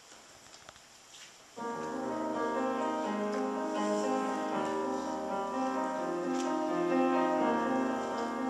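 A quiet room for about a second and a half, then a keyboard instrument begins the introduction to a choir anthem, playing held chords.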